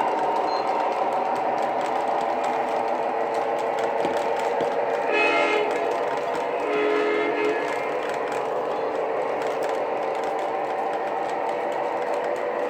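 Lionel TMCC C420 model diesel locomotive running on its track, its electronic diesel engine sound playing steadily from the onboard speaker. The horn sounds twice, a short blast about five seconds in and a longer one about a second and a half later.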